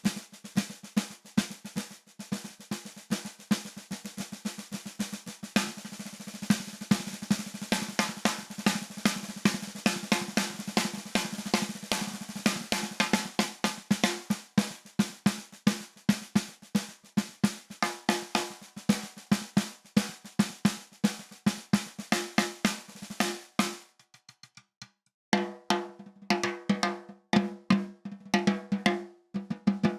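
Peace SD524MP-201 13 x 5½-inch nine-ply maple snare drum played in fast runs of strokes and rolls. The playing stops for about a second a little over three-quarters of the way through, then picks up again.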